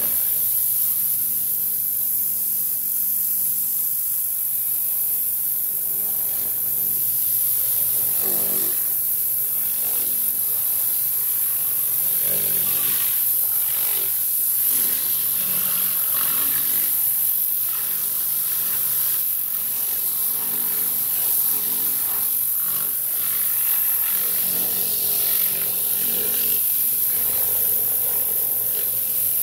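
Tornador Classic air-powered cleaning gun blasting compressed air mixed with all-purpose cleaner onto a dirty engine bay: a loud, steady hiss with an uneven flutter running through it. The air jet is laying the cleaner down and agitating the grime at the same time.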